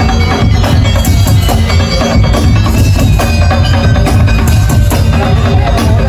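A Madurese daul dugdug ensemble playing loudly: deep bass drums drive a fast rhythm under hand drums and woodblock-like strikes, with a pitched melody line above.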